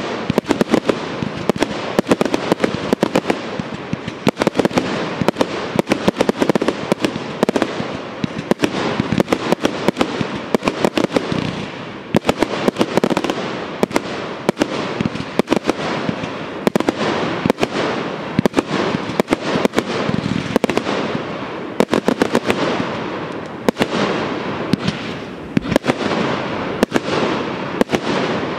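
Professional fireworks display: a rapid, continuous barrage of aerial shell launches and bursts, many sharp bangs a second over a constant din of noise that never lets up.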